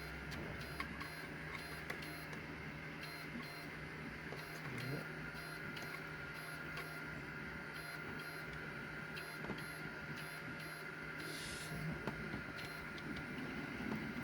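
A steady machine hum with a faint ticking that repeats at an even pace, and a few light clicks and taps from handling small parts.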